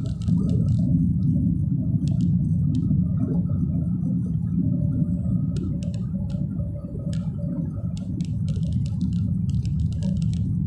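Steady low rumble of a car's engine and tyres on the road, heard from inside the cabin, with a few faint scattered ticks.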